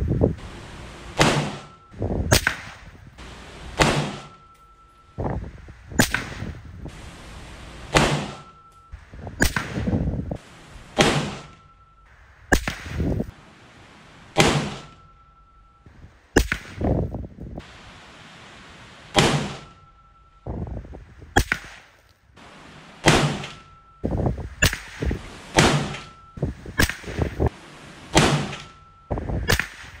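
A long series of rifle shots heard from the target end of a 100-yard range: about thirty sharp cracks, spaced irregularly roughly a second apart, each with a short ringing tail. The rifles fired are a .17 HMR, a .223/5.56 AR, a .270 Winchester and a .45-70.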